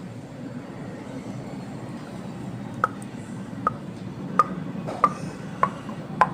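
A spoon knocking against a bowl six times, about one knock every two-thirds of a second from a little before halfway, as ghee is spooned into the flour mixture. A steady low hum runs underneath.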